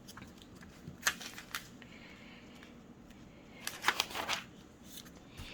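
Catalog paper pages rustling as they are handled and turned, in short bursts about a second in and again around four seconds in.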